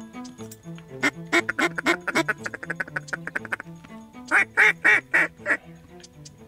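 Duck quacks over background music: a fast run of quacks about a second in that speeds up and trails off, then five loud, evenly spaced quacks.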